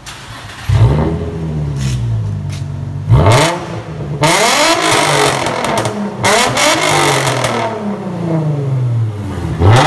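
Infiniti G35's 3.5-litre V6 revved in repeated sharp throttle blips, each rising quickly and falling back, through an exhaust with the muffler and resonator removed. The straight-through exhaust is super loud.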